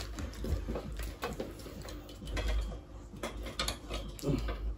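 Light clicks and knocks of a black metal hammock stand being handled and adjusted, over a low rumble of movement.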